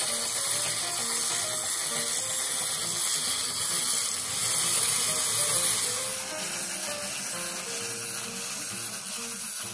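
Background music, a light tune of short notes, over the steady buzzing whirr of the wind-up walker toys' clockwork feet running down as they walk.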